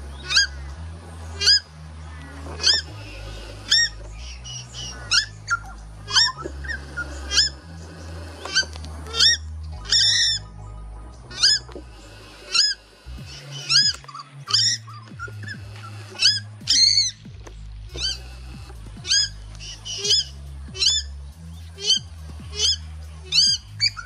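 Purple swamphens giving repeated short, sharp alarm calls, one every half second to a second, an alarm at a red-bellied black snake. A background music track with a low bass line runs underneath.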